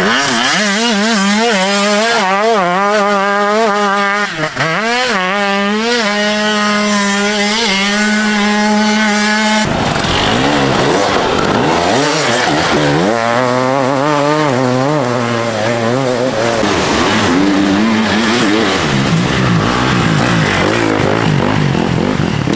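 Enduro dirt bike engines revving hard, their pitch climbing and dropping with throttle and gear changes. There is a short throttle cut about four and a half seconds in, and about ten seconds in the sound switches abruptly to another bike with a wavering engine note.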